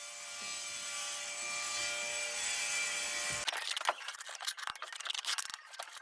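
A power tool runs steadily on galvanized pipe that is completely blocked, then cuts off after about three and a half seconds. Irregular scraping and crackling clicks follow.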